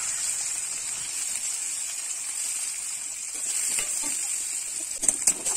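Chopped onions sizzling in hot mustard oil in a kadai, a steady hiss. Near the end, a few sharp scrapes of the spatula against the pan.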